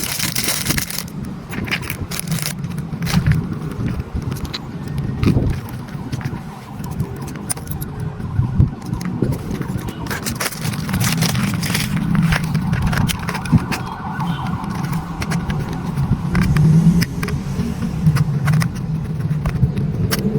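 Small electric motors and gearboxes of a remote-control toy excavator running, with a whine that rises and falls and scattered clicks and scrapes.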